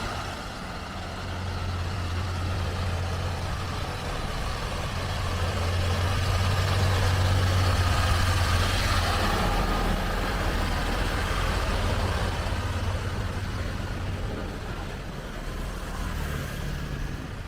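Heavy diesel engine of a Sitrak G7 540 truck hauling six excavators, pulling steadily up a steep mountain grade. The low drone grows louder to a peak about halfway through, then fades.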